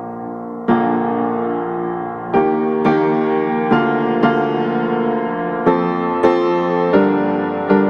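Background piano music, soft sustained chords with single notes struck every half second to second and a half.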